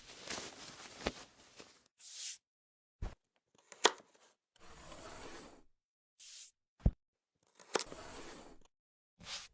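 Edited food-preparation sound effects: sharp knife-on-board taps and chopping, with scraping and rustling stretches in between, each cut off into dead silence.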